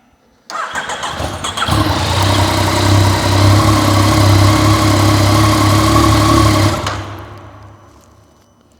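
Yamaha XSR 900's inline three-cylinder engine cranked on the starter, catching after about a second and idling steadily, then switched off and dying away near the end. It is the first start after a fresh oil fill, run briefly to circulate the oil before the sight-glass level check.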